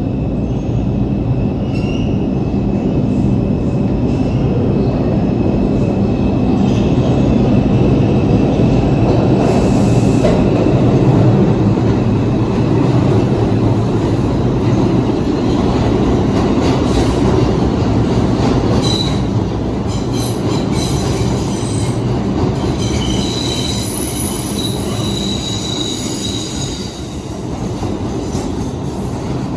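R142 subway train running through a tunnel: a continuous loud rumble of steel wheels on rail, with high wheel squeal coming and going, clearest in the second half.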